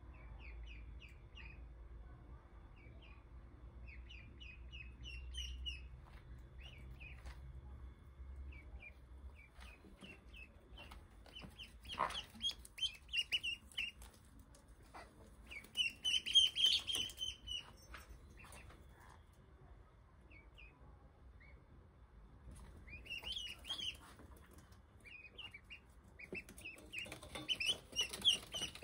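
Ducklings peeping: many short, high chirps in quick runs, growing denser and louder about midway and again near the end.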